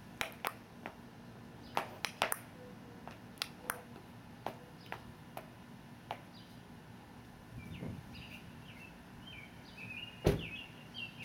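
Small birds chirping in short broken phrases during the last few seconds, over a scattering of sharp clicks, with one louder thump about ten seconds in.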